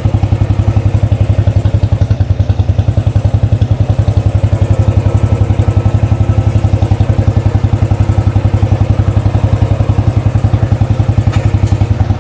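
A 2013 Royal Enfield Classic 500's single-cylinder four-stroke engine running steadily at idle, with even, regular thumps, just after being clicked into first gear. A light click near the end.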